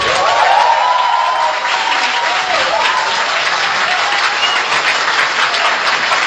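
Audience applause, a dense steady clapping of a crowd, with a few whistles over it in the first three seconds.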